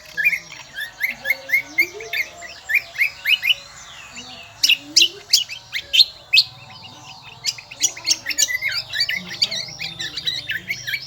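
Cucak kombo (kecial kombo) songbird singing a rapid, shrill, chattering run of short high notes without a break, busier about five seconds in and again near the end.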